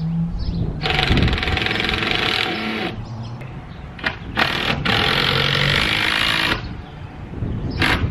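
Cordless drill driving screws to fasten a wooden roof bracket under the eave: two runs of about two seconds each, with short trigger blips in between and near the end.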